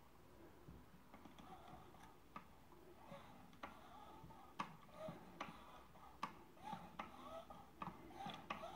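Faint mechanical clicking, about two clicks a second and a little quicker in the second half, from a cut-away model steam engine's piston, crosshead and valve gear as its flywheel is turned by hand.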